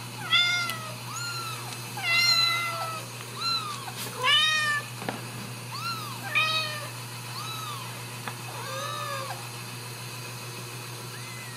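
Ragdoll kittens mewing over and over, about a dozen short high calls, each rising and falling in pitch, the loudest in the first five seconds and thinning out after about nine seconds. A steady low hum runs underneath.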